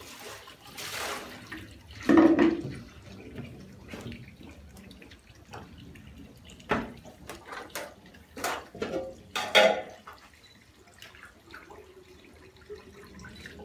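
Water and olive oil trickling and dripping from the stacked pressing mats of a traditional screw olive press into the pit below, with a few louder splashes and knocks.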